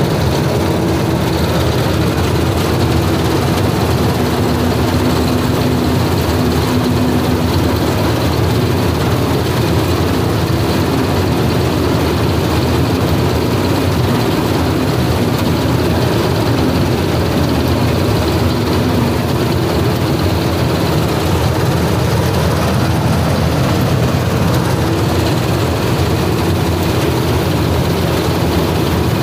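Combine harvester running steadily at working speed while cutting ripe rice: its engine and header and threshing machinery make one loud, unbroken drone, heard close from the driver's seat.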